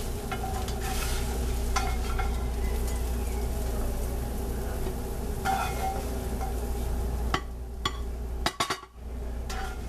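Food frying in a pan on the stove, a steady sizzle with a few light clicks of a utensil. The sizzle drops off about seven seconds in, followed by a short cluster of clicks.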